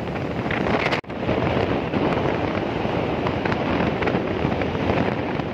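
Wind buffeting the microphone, with road and engine noise, from riding a motorbike along a highway. The sound drops out for an instant about a second in, then carries on steadily.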